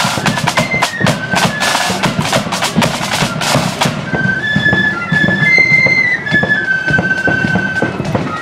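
Marching flute band playing: side drums and bass drum beat densely under the flutes' melody for about the first four seconds, then the drumming drops back and the flutes carry the tune over it.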